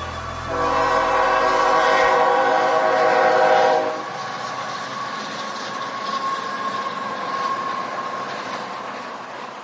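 Train whistle sounding one held chord for about three and a half seconds, followed by the running noise of a train that fades away near the end.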